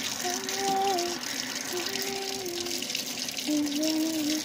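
Kitchen tap water running steadily into a stainless-steel sink, splashing over a hand holding an egg. Over it, a slow melody of held notes that step up and down.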